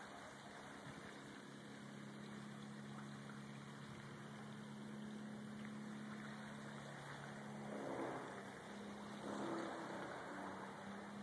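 A faint, steady low engine hum from a motor running in the background, with a couple of brief louder rustles about eight and nine and a half seconds in.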